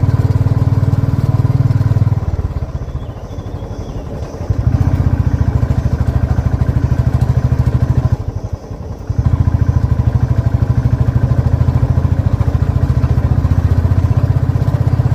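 Royal Enfield motorcycle engine and exhaust running under way with a steady rapid pulsing. The throttle eases off twice, once for about two seconds starting two seconds in and once briefly about eight seconds in, and each time the engine pulls again.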